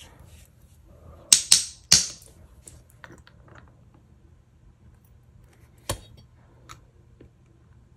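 Sharp clicks and clinks of small metal hardware being handled: three close together between one and two seconds in, one more near the middle, with faint ticks between.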